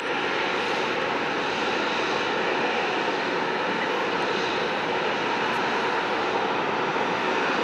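Jet airliner engines giving a steady, loud rush of noise.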